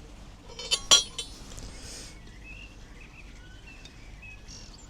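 Metal tools or parts clinking together: a few sharp clinks with a short ring about a second in, then faint high chirps.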